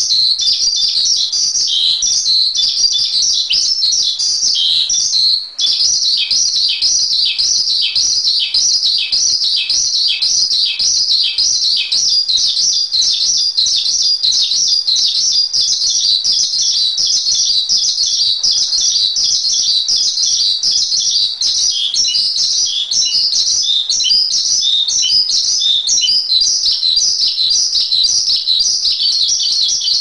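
Asian pied starling (jalak suren) chirping without let-up: a dense run of high, short repeated calls, about three a second, broken once briefly about five seconds in.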